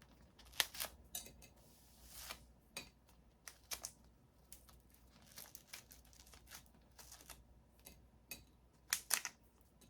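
Hard, brittle granadilla shell being cracked and pulled apart by hand: faint scattered crackles and snaps, with a few louder cracks about nine seconds in.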